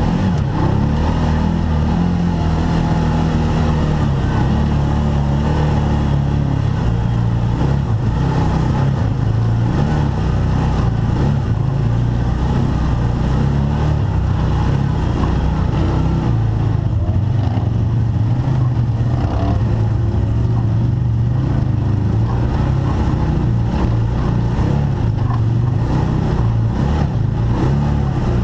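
Arctic Cat Wildcat side-by-side engine running on an off-road trail, its pitch rising and falling with the throttle.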